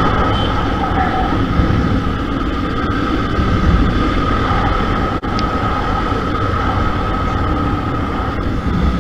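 Steady wind rush and road noise from a KTM RC 200 sport motorcycle under way at about 60 km/h, with its single-cylinder engine running underneath.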